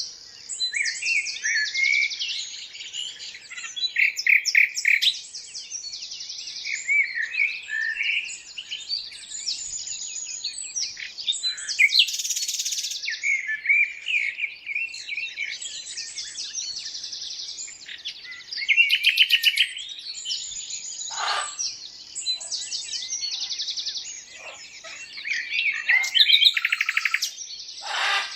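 A dense chorus of songbirds chirping and singing, many overlapping rapid trills and short whistled notes, with a few harsher calls in the later part.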